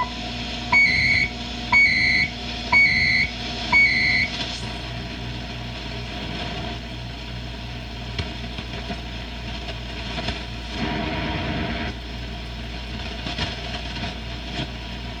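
Norelco Bi-Ampli tube radio tuned across the shortwave band. Its speaker gives a short tone, then four short beeps about a second apart from a station, then steady static and hum with a brief warbling patch as the dial moves.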